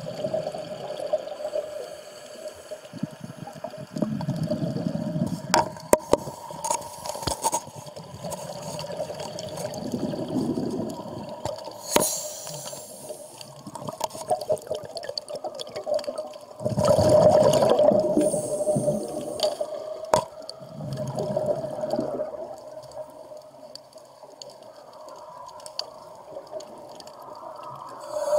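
Scuba regulator exhalations heard underwater: bursts of bubbling rush every few seconds, the biggest about two-thirds of the way through, over a steady hum, with a few sharp clicks.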